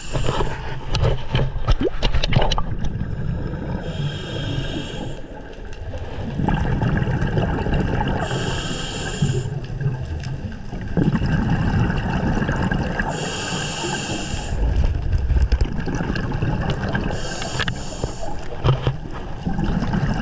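Underwater sound around a scuba diver: a low churning gurgle of water and bubbles, with a breath hissing through the regulator for about a second every four to five seconds. Sharp clicks and knocks come in the first couple of seconds.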